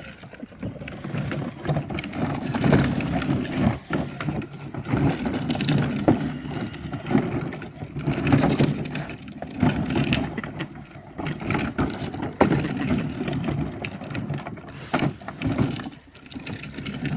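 Dog playing with a plastic toy car: irregular rattling, scraping and knocking of the toy against the floor.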